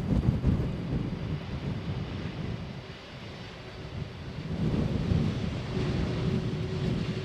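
Jet airliner engine rumble that swells and fades, with wind buffeting the microphone. A faint steady whine comes in near the end.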